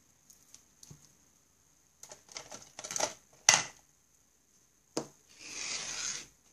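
Desk handling noises: light clicks and rattles of pens and small objects, a sharp knock on the desktop a little past halfway, then about a second of rubbing as a small notebook is slid onto the wooden desk and set down.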